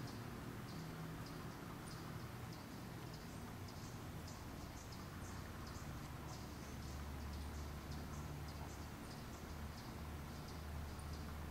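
Faint, short, high chirps, a few a second at uneven spacing, over a low steady hum.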